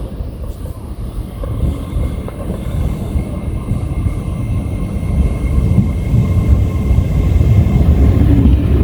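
A train rumbling along the line, growing steadily louder, with a faint steady high whine over the rumble.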